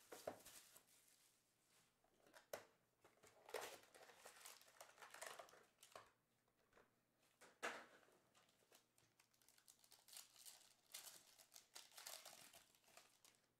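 Faint, irregular crinkling of foil trading-card pack wrappers and rustling of the cardboard card box as it is opened and the packs are handled.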